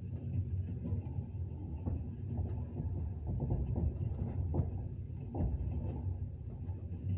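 Train running: a steady low rumble with irregular clacks of the wheels, a few of them louder, about two, four and a half and five and a half seconds in.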